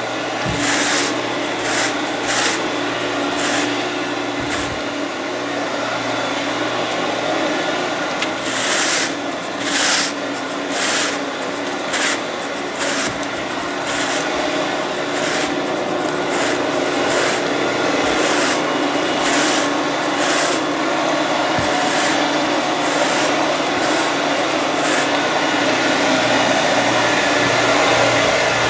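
Carpet rake dragged through carpet pile in repeated scratchy strokes, about one a second, stopping about two-thirds of the way through. Under it a portable carpet extractor's vacuum motor hums steadily and grows louder near the end.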